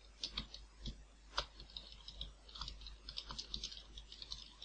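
Typing on a computer keyboard: a run of faint, quick key clicks that gets denser in the second half.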